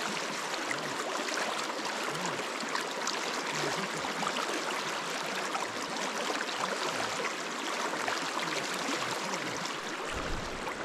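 Shallow freestone stream rushing and gurgling over rocks in a riffle, a steady rush of water close to the microphone.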